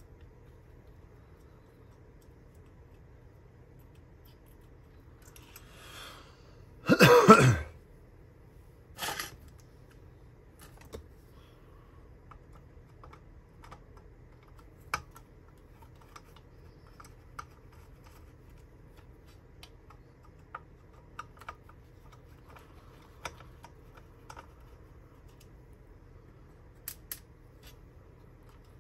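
Scattered light clicks and taps from handling parts and tools at a repair bench. About seven seconds in comes one loud, short cough-like vocal sound, and a second, shorter one follows about two seconds later.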